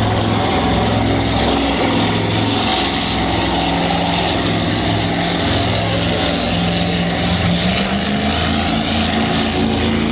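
Offshore powerboat engines running hard at speed over the rush of churned water, with the engine note climbing in pitch about three-quarters of the way through.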